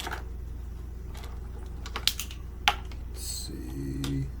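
A few sharp, scattered clicks and taps of kitchen utensils and containers being handled, with a short hiss about three seconds in.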